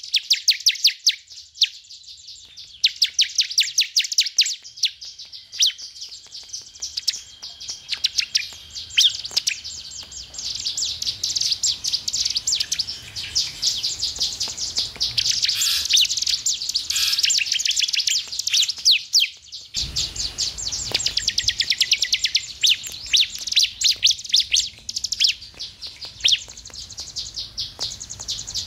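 Bar-winged prinia (ciblek) singing: long runs of sharp, high notes repeated very fast, several a second, broken by short pauses.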